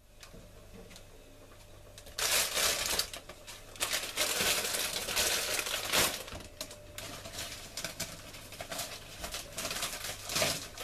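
Plastic bag crinkling and rustling as it is handled, in several irregular bursts after a quiet first two seconds.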